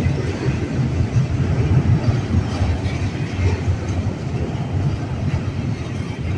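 Freight train cars rolling past on the rails: a steady low rumble of wheels on track, with no horn.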